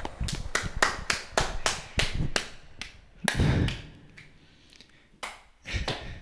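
One person clapping, about three claps a second, stopping about three seconds in; two or three more claps come near the end.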